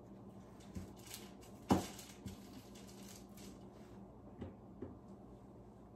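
Light clicks and taps of kitchen utensils as cookies on a wire cooling rack are glazed, with one sharper knock just under two seconds in, over a faint steady hum.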